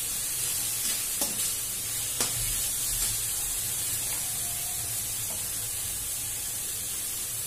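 Shredded cabbage and capsicum sizzling in hot oil in a kadai while a perforated metal spatula stirs them, with a couple of sharp clicks of the spatula against the pan.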